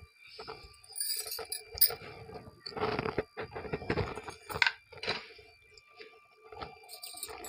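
A metal spoon clinking and scraping against a ceramic plate of rice, in irregular short clinks and rustles, busiest a few seconds in.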